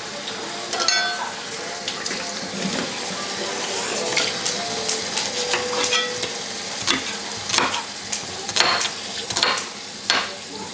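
Food sizzling in a pan: a steady hiss, with sharp clinks and knocks of utensils and dishes, coming about once a second in the second half.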